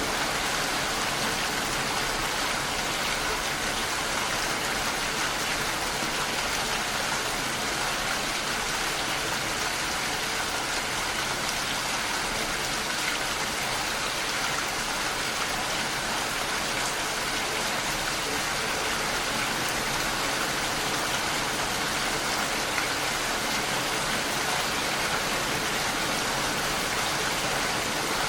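Steady, even rain falling and pattering on surfaces, with no let-up.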